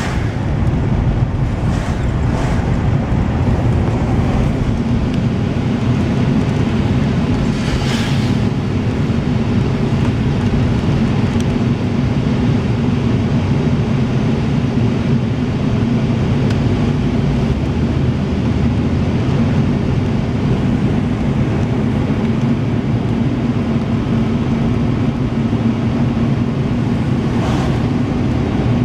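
Steady engine and road noise heard while driving in a vehicle, with a brief louder hiss about eight seconds in and again near the end.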